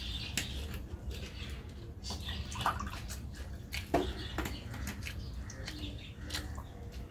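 Close eating sounds of a person eating rice by hand: chewing and wet mouth clicks and smacks, with a sharp louder one about four seconds in, over a steady low hum.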